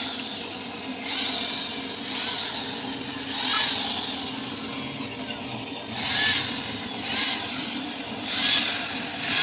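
A woodworking tool working the wood in short, scraping strokes, about one a second, over a steady low hum.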